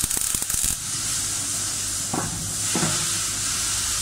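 MAG (gas metal arc) welding arc crackling on a vertical-up root pass in a steel plate butt joint, cutting off abruptly under a second in as the pass is stopped. A steady hiss carries on after.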